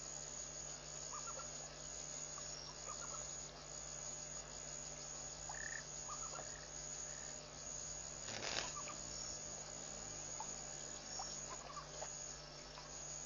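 Night chorus of insects and frogs at a waterhole: a steady high insect trill with short chirping calls scattered through it. A brief burst of noise comes about eight and a half seconds in.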